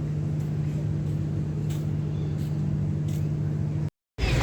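A steady low mechanical hum with one strong low tone, like a running engine, cut off abruptly near the end.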